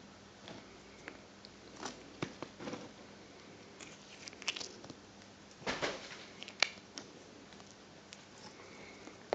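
Hands handling model railway scenery close to the microphone: irregular small clicks, taps and rustles, with a cluster around six seconds in and the sharpest click just after.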